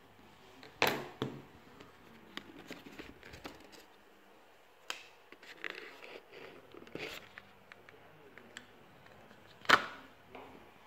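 Handling of a cardboard Galaxy Note 8 phone box and its inner tray: a few sharp taps and knocks against the table, the loudest near the end, with light scraping and rustling of cardboard between them.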